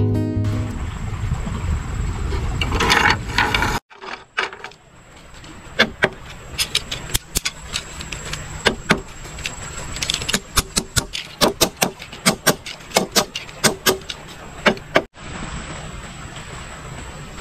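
A few seconds of loud rushing noise, then a long run of irregular sharp clicks and taps from small objects being handled, such as hooks, line and bamboo, while the rod is put together. A faint steady high buzz lies underneath.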